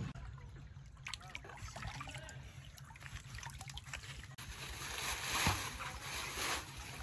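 Water splashing and sloshing, loudest in the second half, after a run of scattered small knocks and clicks.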